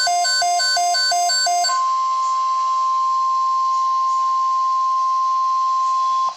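Electronic alert beeping in a fast repeating pattern, then about two seconds in a single steady 1050 Hz NOAA Weather Radio warning alarm tone that holds at a constant level and cuts off abruptly near the end. The tone signals the start of a tornado watch broadcast.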